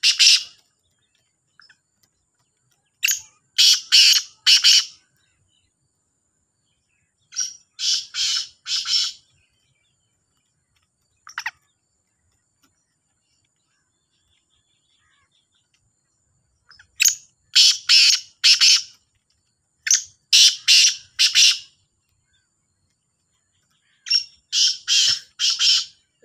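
Caged black francolins calling against each other: series of four or five harsh, grating notes, repeated five times with pauses of a few seconds between.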